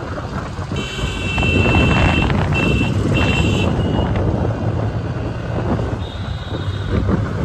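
Steady traffic noise with wind buffeting the microphone, and a high-pitched horn sounding in several short blasts between about one and three and a half seconds in.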